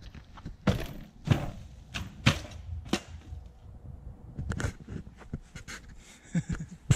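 Footsteps through dry fallen leaves and dirt on a forest trail: a series of sharp, crisp steps, roughly one every half second to second.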